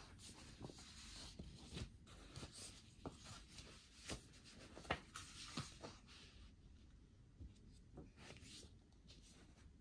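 Faint rustling and light ticks of paper leaflets and cards being picked up, flipped and set down by hand, with the sharpest tick about five seconds in.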